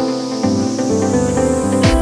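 Electronic background music: sustained synth chords under a rising noise sweep, with a kick drum coming in near the end.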